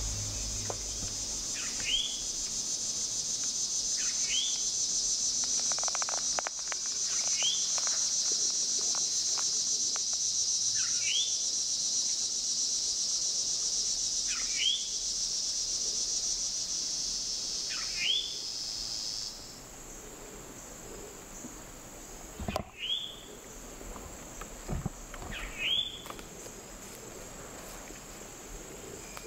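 A dense, steady, high insect chorus that stops abruptly about two-thirds of the way through. Over it, a bird repeats a short downward-slurred call about every two seconds. A few faint knocks come near the end.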